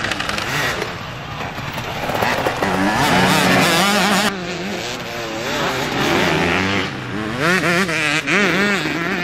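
Motocross bike engines revving hard, their pitch rising and falling quickly as the bikes accelerate through corners. The sound changes abruptly about four seconds in and again about seven seconds in.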